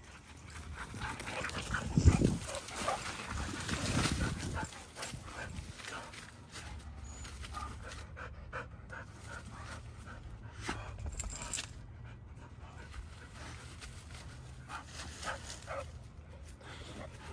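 Dogs panting and rustling through leafy shrubs as they sniff around, with scattered small clicks and rustles. A loud thump comes about two seconds in.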